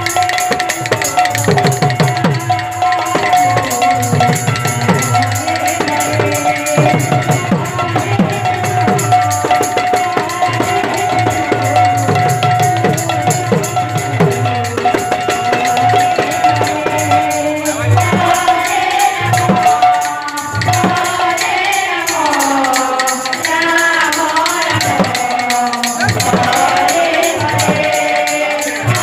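Kirtan music: hand drum and small metal cymbals in a fast, steady beat under a long held note. About two-thirds of the way through, singing comes in over the percussion.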